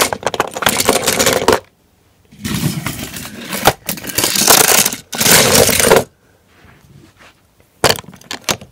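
Small toy vehicles rattling and scraping over a wooden train track as a hand pushes them along, in four bursts of about a second each. A quieter stretch follows, with a few sharp clicks near the end.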